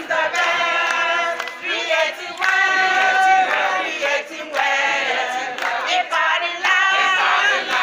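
A group of women singing together loudly in short phrases, several voices at once.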